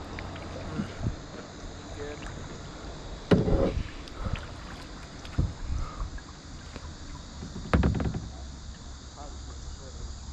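Kayak being paddled through shallow water: small paddle splashes and knocks, with two louder knocks about four and a half seconds apart.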